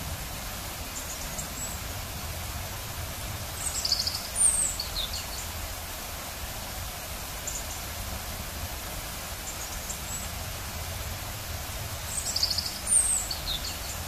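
Steady rush of a waterfall, with a songbird singing a short chirping phrase twice, about four seconds in and again near the end, and fainter chirps in between.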